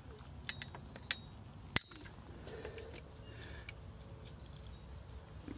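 A few sharp snips of side cutters cutting plastic zip ties, the loudest just under two seconds in, over a steady background of crickets chirping.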